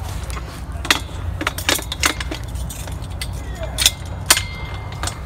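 Sharp metal clicks and clanks of an equipment winch's mounting bracket and locking pin knocking against the steel leg of an MSA confined-space tripod as the bracket is fitted on, at irregular intervals.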